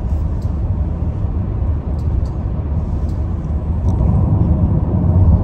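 Steady low road rumble of a car cruising on an expressway, tyre and engine noise heard inside the cabin, growing a little louder about four seconds in.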